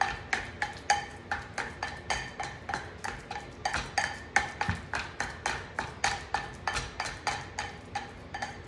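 Plastic meat-separator masher mashing avocado in a glass prep bowl: rhythmic knocks against the glass, about four a second, each with a brief ringing of the bowl.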